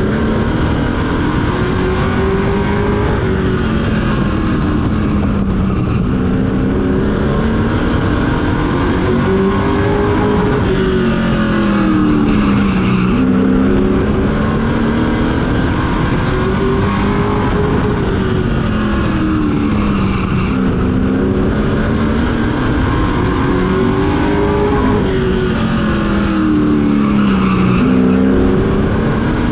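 Carbureted Pro Truck race engine heard on board at race pace, its pitch climbing on each straight and dropping as it lifts for each turn, about four times.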